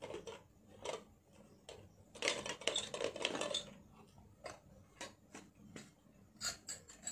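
Gold-plated bangles clinking faintly as they are handled and taken out, in scattered light clicks, with a stretch of rustling from about two to three and a half seconds in.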